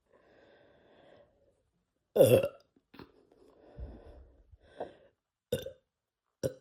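A young man burping repeatedly from the gas of carbonated Sprite: a loud short burp about two seconds in, then a longer, lower burp and three short ones near the end.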